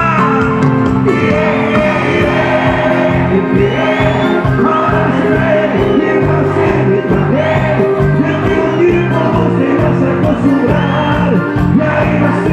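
Live cuarteto band playing loud and steady with an even beat, held keyboard-like notes over it and voices singing along between the lead vocal lines.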